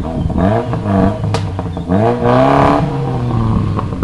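Historic rally car's engine revving hard on a special stage, its pitch climbing and dropping back at each gear change, then easing off near the end. A single sharp crack sounds about a second and a half in.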